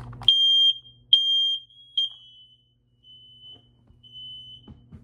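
Household smoke alarm's piezo horn sounding under test: two loud, high-pitched half-second beeps and a third cut short about two seconds in. Fainter, slightly lower beeps follow.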